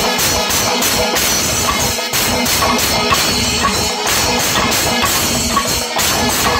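Panchavadyam, the Kerala temple percussion ensemble, playing: timila and maddalam drums with ilathalam cymbals clashing continuously in a dense, unbroken rhythm.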